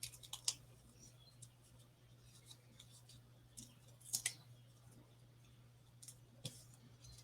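Faint, scattered clicks and crinkles of backing paper being peeled off adhesive foam dots on a paper-craft piece, with a few sharper ticks near the start and about four seconds in.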